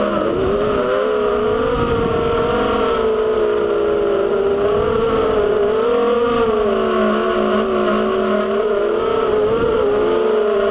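FPV quadcopter's brushless motors and propellers whining, the pitch rising and falling continually with the throttle.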